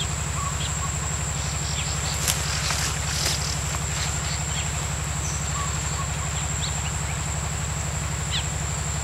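A steady low mechanical drone, evenly pulsing like a motor running, under a constant high insect whine and a few short bird chirps. A cluster of faint clicks comes about two to three seconds in.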